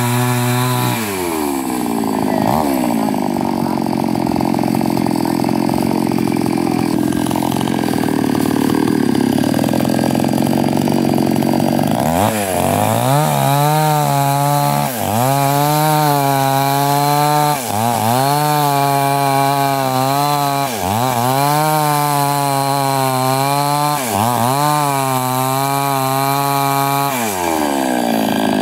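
Small two-stroke chainsaw running at high speed, cutting through mango wood for roughly the first ten seconds. Then it is revved off the wood, its engine speed dropping and climbing back again and again, about every three seconds.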